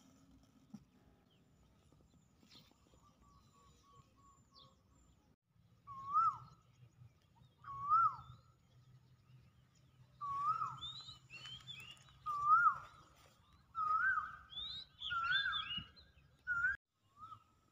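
A bird repeats a short, hooked call about every two seconds, starting about six seconds in, seven calls in all. Higher chirps from other birds join over the later calls.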